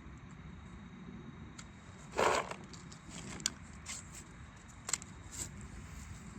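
Handling noises: a brief loud rustling scuffle about two seconds in, then a few sharp clicks and light rustles over a low background.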